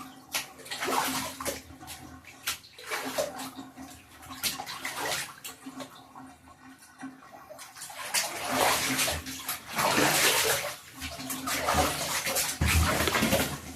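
Water splashing and sloshing in a bathtub as a cat is washed, in irregular bursts that grow louder about eight seconds in.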